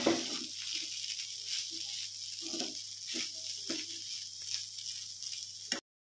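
Chura matar (flattened rice with peas) sizzling in a kadhai while a metal spatula stirs and scrapes through it, giving a steady hiss under short irregular scrapes. The sound cuts off suddenly near the end.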